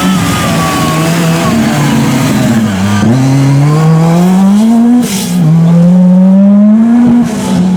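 Lancia Delta S4 Group B rally car's twin-charged four-cylinder engine: it eases off, then accelerates hard from about three seconds in. It shifts up twice, at about five and seven seconds, and each shift brings a sudden drop in revs and a short burst of hiss.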